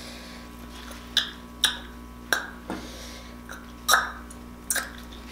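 Disposable plastic glove being pulled on and handled: a series of short plastic crinkles and rustles, about eight in all, over a faint steady room hum.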